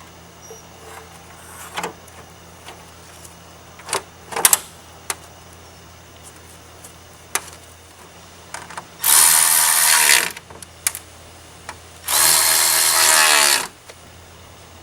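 A hand-held power tool runs in two bursts of about a second and a half each, its whine falling as it winds down at the end of each burst, most likely driving the truck's front bumper bolts. A few light knocks and clicks come before, in the first few seconds.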